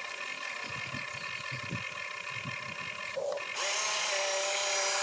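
Radio-controlled excavator's electric motors whining steadily as the boom and bucket move. About three and a half seconds in, the whine gets louder and a lower hum joins it.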